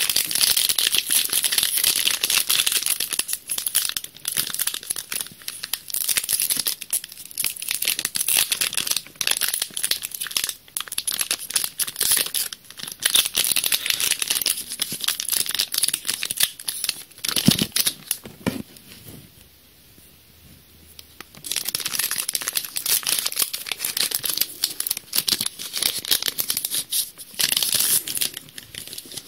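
Foil wrapper of a Yu-Gi-Oh! booster pack crinkling and tearing as it is ripped open by hand. There is one thump about two-thirds of the way through, then a short lull before the crinkling resumes.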